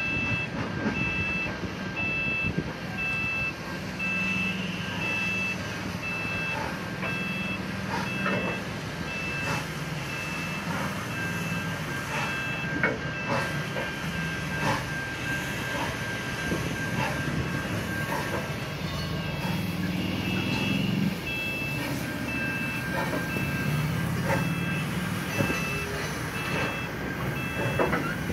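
Railway level crossing alarm sounding a rapid, evenly repeating electronic beep without a break. Under it, a train's carriages roll slowly over the crossing with a low rumble and scattered sharp wheel clacks.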